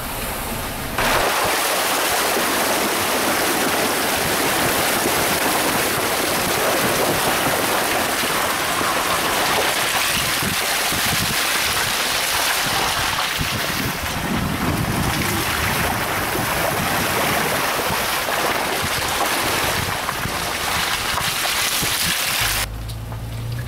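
Wind rushing over a microphone held outside a slowly moving vehicle: a steady, loud hiss of noise that starts suddenly about a second in and cuts off near the end.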